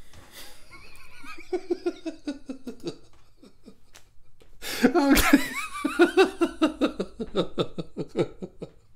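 A man laughing: soft, broken laughter at first, then a loud burst of laughter about five seconds in that carries on in quick, even pulses.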